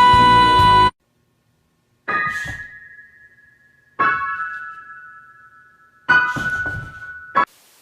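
A loud held tone stops just under a second in, then piano keys are struck three times about two seconds apart, each note ringing and fading away, with a short fourth strike cut off near the end.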